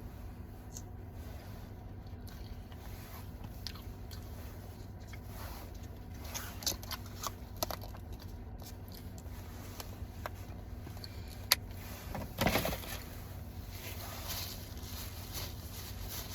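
A person biting and chewing powdered donut holes that are crunchy on the outside, with scattered crunches and small clicks, the loudest burst of crunching a little past the middle. A low steady hum runs underneath.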